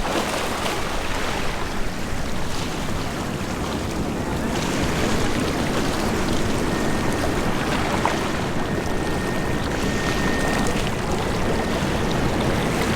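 Boeing 787-10 jet engines heard on approach: a steady rushing roar, with a faint thin whine coming in about halfway through.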